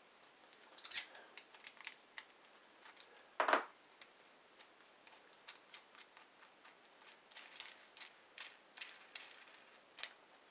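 Light, irregular clicking and rattling of a steel M8 bolt and captive nut being handled in a turned beech knob, with one louder knock about three and a half seconds in.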